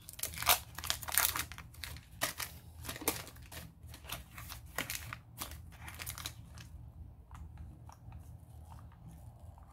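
Small plastic toy packaging crinkling and crackling as it is handled and picked open by hand, a dense run of irregular crackles for about six seconds, then fainter and sparser.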